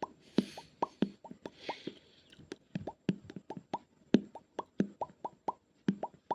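Rapid mouth pops made with the tongue and cheek, each a short plop that slides quickly upward in pitch like a water drop. They come about four to five a second at uneven spacing, with two brief hissy breaths near the start.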